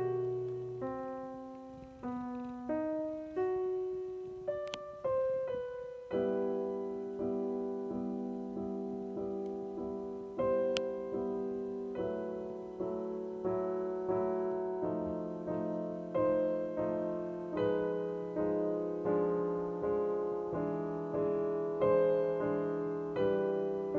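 Slow solo piano background music: single notes at first, then repeated chords from about six seconds in.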